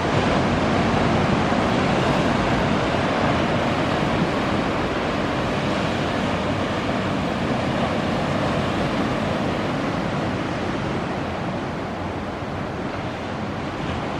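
Sea surf washing and breaking over shore rocks: a steady rush of waves.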